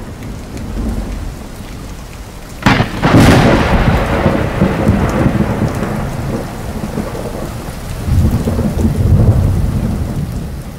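Thunderstorm sound effect: a sharp thunderclap about two and a half seconds in rolls on into a long rumble over a steady hiss of rain. Another swell of rumbling comes about eight seconds in.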